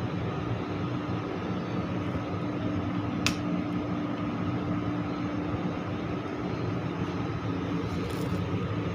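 Air handling unit running: a steady fan and motor hum with a constant tone, and a single sharp click about three seconds in.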